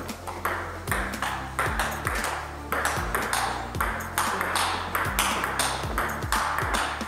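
Background music with a steady beat over the clicks of a table tennis rally: the ball bouncing on the table and struck back and forth with the bats, one of them faced with a sticky Nittaku Hurricane Pro III Turbo Orange rubber.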